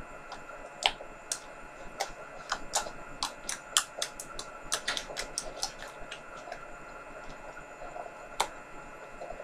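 A run of sharp, irregular clicks and taps from small objects being handled, about a dozen over the first six seconds and one more near the end.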